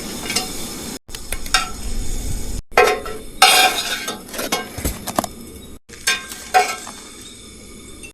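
Cooking sounds over several quick edits: a utensil stirring and clinking against pots and dishes, with a sizzling hiss under it in the first second.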